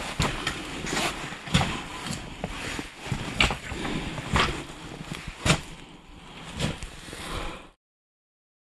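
Footsteps crunching over loose rock rubble, uneven and about one a second, then cut off suddenly near the end.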